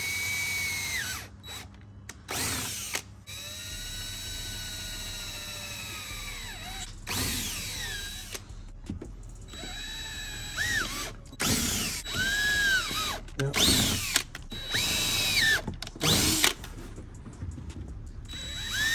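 Cordless drill boring holes up through a plastic front splitter and into the car's front bumper, run in a series of short bursts: the motor whine rises as the trigger is squeezed and falls away as it is released, with one longer run of about three seconds early on.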